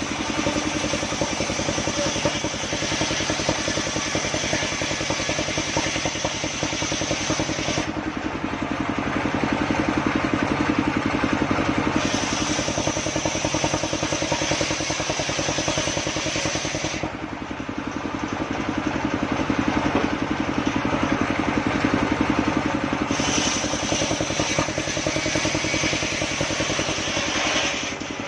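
Homemade engine-driven circular saw ripping sengon wood. The engine runs steadily throughout, and the blade cuts in three long passes, with the cutting noise dropping away briefly about 8 seconds in and again about 17 seconds in.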